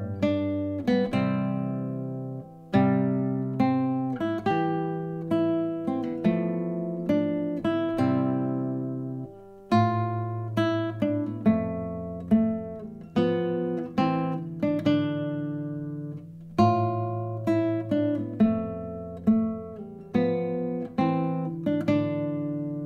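Solo classical guitar played fingerstyle: an unaccompanied piece of plucked single notes and chords, each left to ring and fade.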